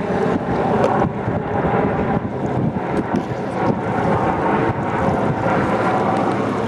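Steady wind buffeting the microphone over choppy water, with a tug's engine running beneath.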